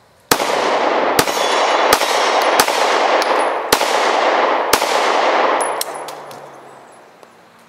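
Six 9mm shots from a SCCY CPX-2 pistol, fired about a second apart, with steel targets clanging and the shots echoing and fading after each one. The string stops on a misfire, which he puts down to hard primers in the Armscor ammunition.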